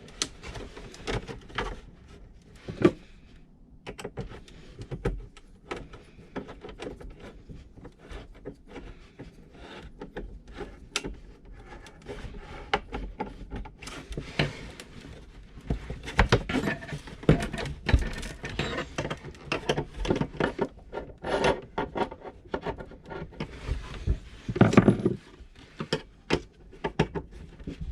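Hands-on fitting noises as a diesel heater is fastened down to a wooden caravan floor: irregular clicks, knocks, scrapes and rubbing, with a louder thump near the end.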